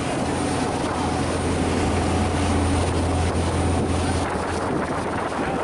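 Charter fishing boat's engine running steadily underway, a deep, even drone with rushing noise over it.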